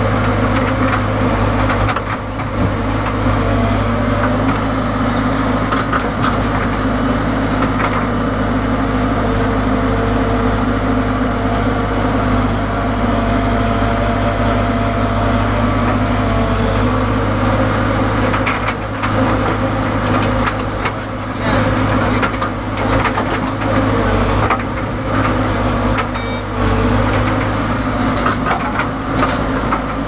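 ACE backhoe loader's diesel engine running steadily under load, heard from inside the operator's cab, with occasional knocks and clatter as the machine works.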